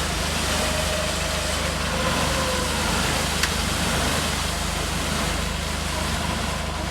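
Off-road 4x4's engine running steadily at low revs, with one sharp click about three and a half seconds in.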